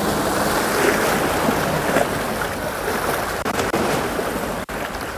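Steady rushing wash of sea water and wind on the microphone, dipping out for an instant near the end.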